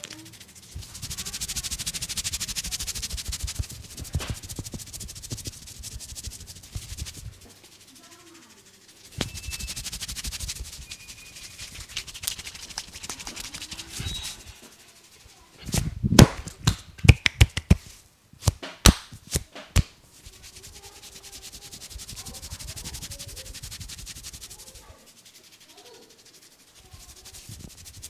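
Hands rubbing and kneading skin and hair during a head massage, a scratchy rubbing noise in long stretches. About halfway through comes a quick run of around a dozen loud, sharp hand strikes over some four seconds.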